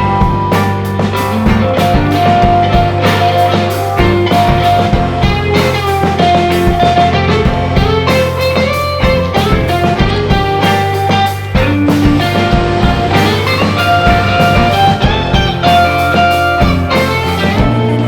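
Background rock music with electric guitar, steady drums and bass.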